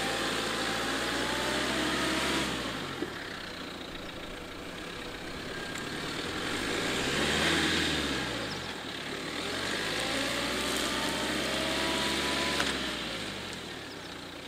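Duster SUV's engine revving up and down in three surges, each rising and then falling away, as the vehicle in locked four-wheel drive pulls slowly through soft, muddy grass.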